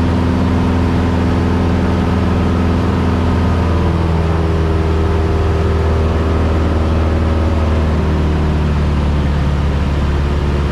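Single-engine piston airplane's engine and propeller droning steadily, heard inside the cockpit. The engine note drops a little about four seconds in as power is eased back.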